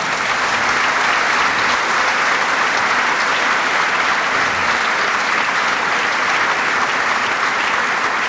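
Members of a parliamentary assembly applauding: steady, dense clapping from a large audience.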